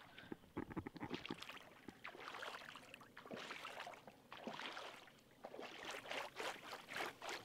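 A bare leg and foot wading into shallow, muddy river water: soft, irregular sloshing and splashing with each step.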